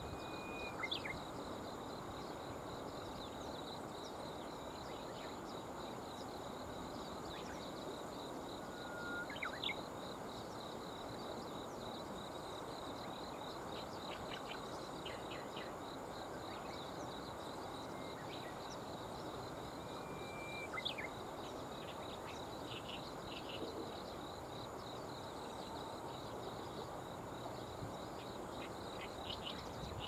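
Steady rush of river water with a continuous high insect trill, and short sharp chirps and brief whistles of small birds scattered throughout, loudest just before 10 s and around 21 s.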